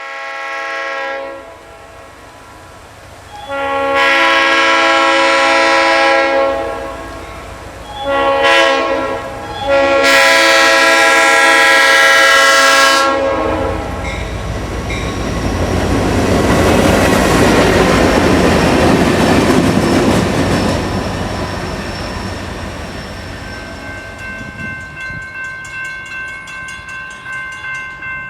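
Leslie air horn on a Norfolk Southern diesel locomotive blowing the grade-crossing signal: long, long, short, long, each blast a multi-note chord. The locomotive then passes with a rumble that swells and fades, and near the end the wheels click rhythmically over rail joints.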